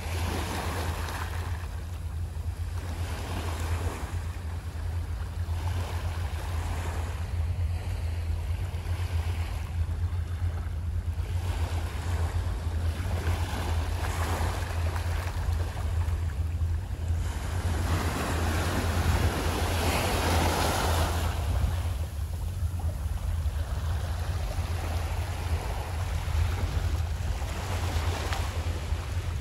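Small waves washing in over a rocky shoreline, swelling and easing every few seconds, with a larger wash about two-thirds of the way through. A steady low wind rumble on the microphone runs underneath.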